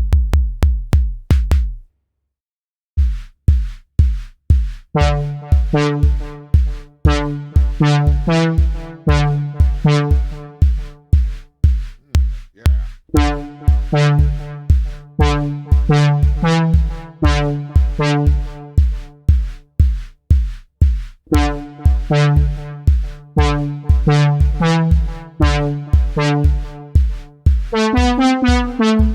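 Electronic beat from a drum machine: a steady, even kick-and-hi-hat pattern that stops for about a second near the start, then comes back. A looping synth bass and chord riff joins a few seconds later and drops out briefly twice. A higher synth line comes in near the end.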